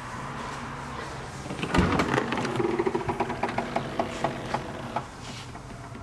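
Tailgate of a Mercedes R350 CDI being opened. The latch releases with a thump, then there is a run of regular clicks, about three a second, and a brief hum as the tailgate rises. The clicks stop about a second before the end.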